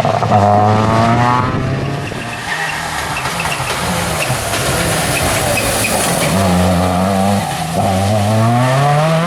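Seat Córdoba WRC rally car's engine revving hard under acceleration. The engine note climbs in pitch for the first second and a half, then fades, comes back, and climbs again near the end.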